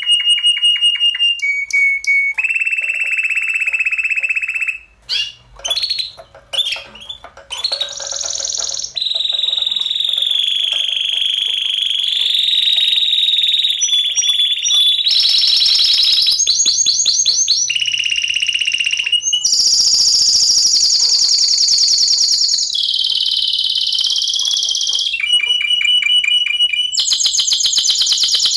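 A Spanish Timbrado canary singing a long, continuous song of rapid metallic rolls and trills, switching between high held tones and fast repeated notes every second or two. The song breaks up into short, quieter phrases about five to eight seconds in, then runs on unbroken.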